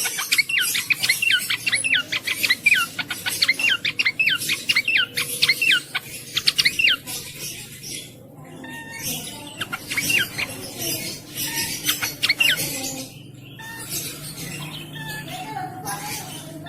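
A cingcoang (jongkangan) bird singing: a fast run of sharp, downward-slurred whistled notes, dense for the first several seconds, then sparser and fainter from about halfway through.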